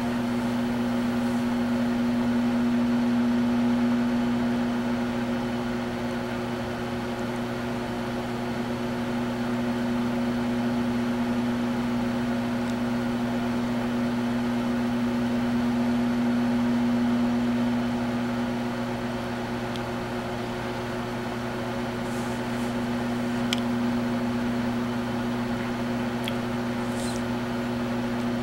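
Microwave oven running: a steady low hum with several overtones that swells and eases slightly, with a few faint ticks in the last third.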